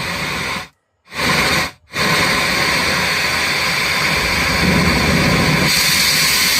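Loud hiss-like noise from the speakers of a TPA3116 2.1 class D amplifier just powered up after repair. It cuts out twice briefly near the start, then runs steadily and grows brighter near the end. The output is a check that both channels now give sound.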